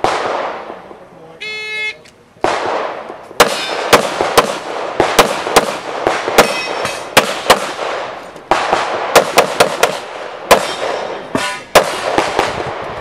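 An electronic shot-timer beep about a second and a half in, then rapid handgun fire as a competitor shoots an IPSC stage: sharp shots in quick pairs and strings, broken by short pauses, each shot trailing off in echo.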